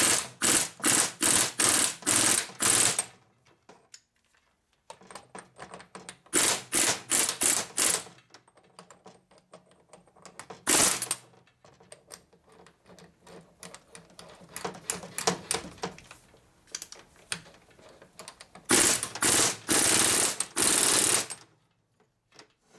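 Hand ratchet wrench clicking in quick runs of strokes, about three or four clicks a second, in several bursts with short pauses between, as a tight nut is worked onto its thread.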